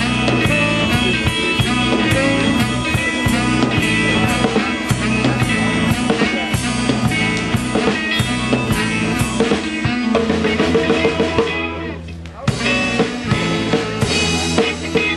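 Live rock band playing guitars over a drum kit with a steady beat. The band drops out briefly about twelve seconds in, then comes back in.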